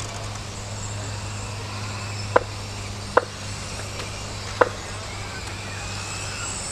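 Electric mini RC touring cars running around an outdoor track. Their motors give a faint high whine over a steady low hum, and three short sharp pips come a second or so apart.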